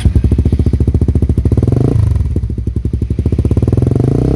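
Suzuki GSX-R150's 150 cc single-cylinder engine running through a Prospeed Black CNC aftermarket racing exhaust, a fast, even train of exhaust pulses that dips briefly about two seconds in and then picks up again.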